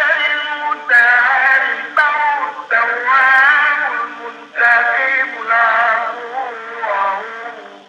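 Background music: a voice singing long, wavering phrases with short breaks between them, over a steady held drone.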